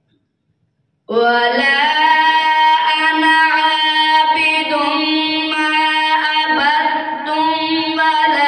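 A boy reciting the Quran in a drawn-out melodic tajweed style, starting about a second in and holding long, slowly shifting notes.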